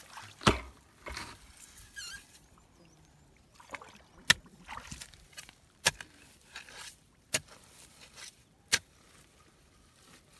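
Bare feet wading in shallow muddy water: sharp wet slaps about every second and a half, with light sloshing between.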